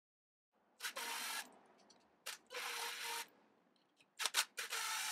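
Cordless electric screwdriver whirring in three short bursts of about half a second each, with a few clicks between, as it turns the saddle screws on a Telecaster bridge plate.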